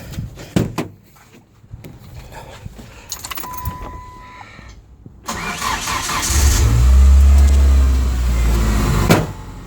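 Keys rattle and a warning chime sounds for about a second. Then the 1997 Ford Ranger's 2.3 L four-cylinder engine cranks, catches about six seconds in and runs loudly before its note drops near the end. This is a cold start on a truck with an intermittent, erratic misfire that the owner has not been able to trace.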